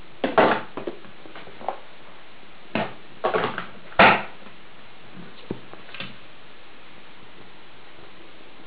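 A string of short, sharp clicks and knocks from handling a homemade bioethanol can stove and its metal tins while it is being lit for preheating, the loudest knock about four seconds in, then only a faint steady hiss.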